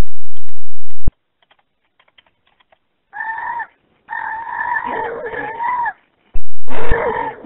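Domestic fowl calling over a telephone line, with several drawn-out, wavering calls from about three seconds in. Before them come a few faint clicks and a sharp knock about a second in.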